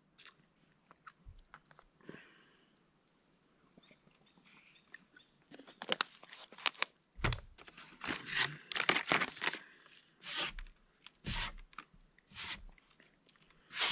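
Plastic crinkling and rustling in a run of short bursts through the second half: a disposable plastic water bottle being handled and its cap twisted off, and a foil snack wrapper being picked up. A faint, steady, high insect trill carries on behind.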